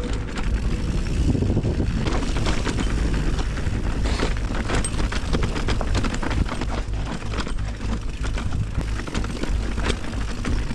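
Riding a bicycle: wind rumbles steadily on the microphone over a dense run of small rattling clicks and knocks.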